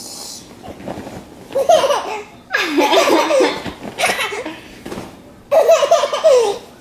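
Baby laughing hard in about four bursts of belly laughs, the longest a little over two seconds in.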